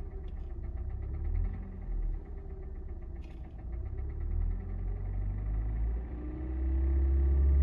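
Kia Sportage's 2.0-litre G4NA four-cylinder petrol engine, warmed up and running with a rapid, ringing metallic knock that grows louder when the throttle is blipped. The owner suspects the cam phasers or valves. About six seconds in the revs rise and settle at a steadier, louder higher speed.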